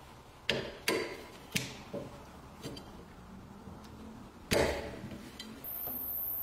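Pliers working at a metal stub in the end of a wooden handle clamped in a vise: a handful of sharp metallic clicks, the loudest about four and a half seconds in. Near the end a steady high-pitched hiss begins.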